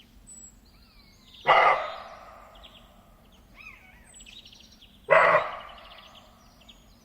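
Two short, loud animal calls about three and a half seconds apart, with small birds chirping throughout.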